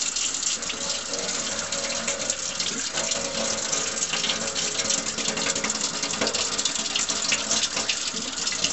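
Water from a tap running steadily into a stainless-steel sink, coming on suddenly at the very start.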